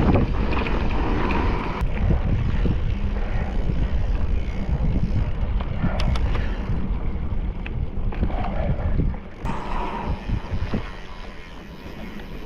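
Wind buffeting a ride-along camera's microphone as a mountain bike moves along a trail, a heavy low rumble with a few sharp knocks from the bike over rough ground. It eases off somewhat near the end.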